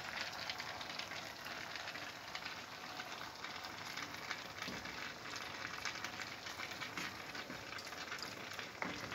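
Cabbage in a hot pot sizzling steadily with small crackles as diluted tomato-and-pepper paste is poured over it and spread with a wooden spoon.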